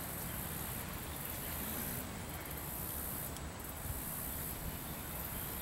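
Steady high insect chirring over a low rumble, with no distinct events.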